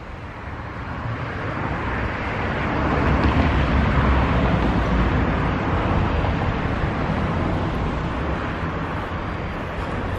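A road vehicle passing: a smooth rush of tyre and engine noise that swells over the first few seconds and then slowly fades.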